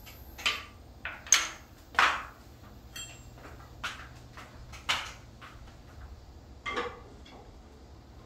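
A series of about seven sharp knocks and clatters at irregular intervals, the loudest within the first two seconds, a few with a brief ring.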